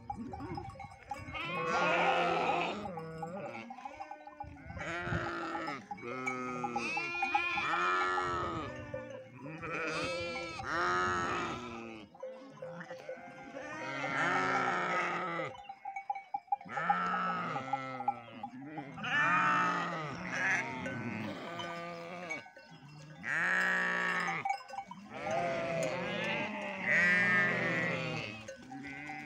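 A flock of sheep and goats bleating, many overlapping calls coming in clusters every few seconds.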